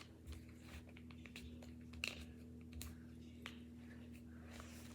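Faint, light clicks and taps from small kit pieces being handled on a table, over a steady low hum.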